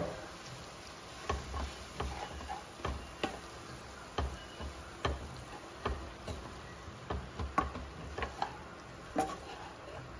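A wooden spatula stirring and tossing flattened rice (poha) in a kadhai, with irregular light knocks and scrapes against the pan about once or twice a second.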